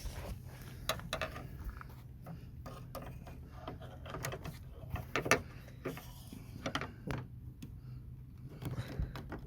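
Scattered clicks, taps and small rattles of a Toyota Celica ST185's door-handle rod, its plastic retaining clip and the door's inner metal being worked loose by hand inside the door, over a low steady hum.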